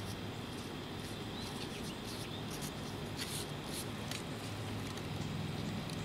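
Outdoor background: scattered short high chirps and ticks, like small birds or insects, over a steady low hum.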